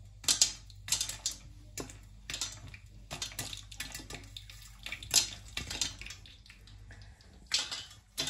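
Popcorn kernels popping in hot oil in a covered stainless-steel pot with a glass lid: irregular sharp pops over the sizzle of the oil, the loudest about five seconds in.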